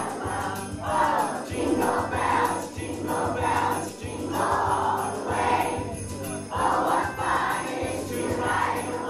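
Sleigh bells shaken in a steady quick beat over music.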